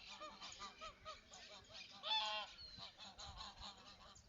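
A flock of waterfowl calling: many short, overlapping calls, with one louder, longer call about two seconds in.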